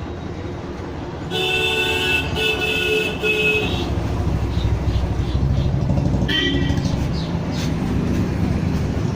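Street traffic: a vehicle horn sounds steadily for about two seconds, then engines rumble past, with a short second honk about six seconds in.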